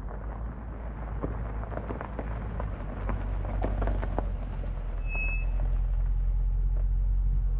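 A car rolling slowly over gravel, the stones crackling and popping under its tyres over a low engine rumble that grows louder as it comes close. A brief high squeak about five seconds in.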